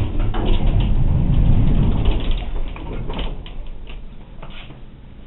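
1964 Dover elevator's doors sliding, with a loud low rumble and clatter for about three seconds, then a few quieter knocks as they settle. The doors have no safety sensor.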